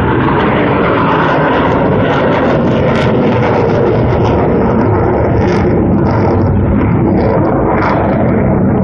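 Jet engine noise from a pair of Blue Angels F/A-18 Hornets flying overhead together, loud and steady.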